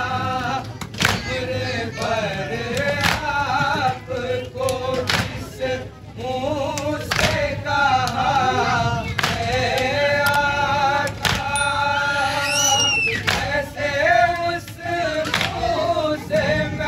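Group of men chanting a nauha (Shia lament) together, a lead reciter with others joining in. Sharp slaps keep a slow, steady beat of about one every two seconds: the chest-beating (matam) that keeps time with the nauha.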